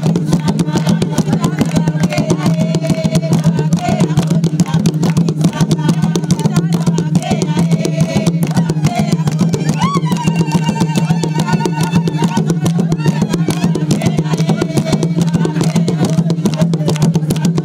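A group of villagers singing a song together over a fast, steady hand-drum beat.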